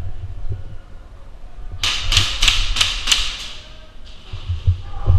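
Airsoft gunfire: a quick rattling run of sharp clicks, about seven a second, lasting about a second and a half from roughly two seconds in, over low thuds.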